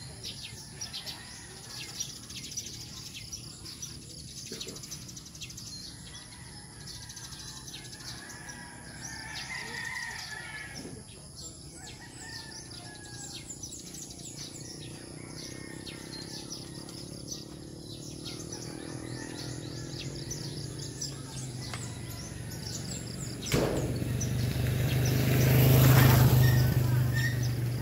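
Many small birds chirping steadily, with a thin, steady high-pitched whine behind them. In the last several seconds a low hum swells, grows suddenly louder, peaks shortly before the end and begins to fade.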